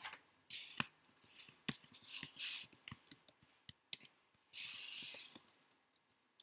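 Homemade dish-soap and baking-soda slime being handled, squeezed and pulled in the hands: irregular sticky clicks and smacks with a few short rustling swishes, one lasting about a second near the end.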